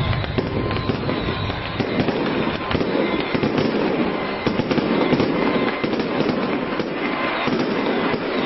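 Strings of firecrackers going off in a rapid, continuous stream of pops.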